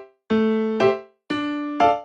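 Background music: a bright electric-piano tune played in short repeated phrases of a few notes, with brief pauses between them.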